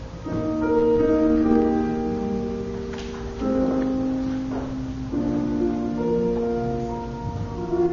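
Keyboard playing slow, held chords that change every two to three seconds.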